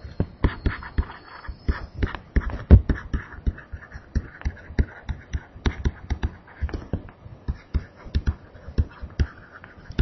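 A stylus tapping and scratching on a tablet screen during handwriting: a quick, irregular run of sharp taps and dull knocks, several a second.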